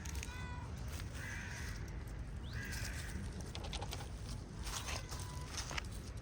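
Street cats meowing several times, with scattered light clicks and taps in the second half.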